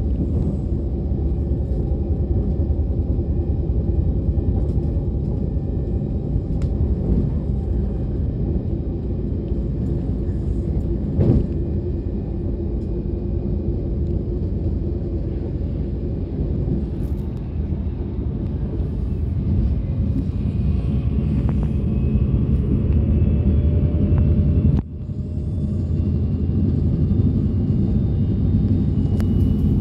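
Ride noise of a DB Class 425 electric multiple unit under way: a steady low rumble of wheels and running gear with faint steady tones above it. A single sharp knock sounds about 11 seconds in, faint high tones shift in pitch from about 20 seconds, and the noise drops away suddenly for a moment near 25 seconds before building back.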